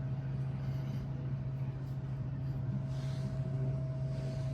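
Steady low motor hum with a faint, higher whine held above it.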